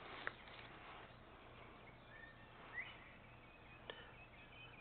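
Near silence: faint background with a couple of faint clicks and a brief faint chirp near the middle.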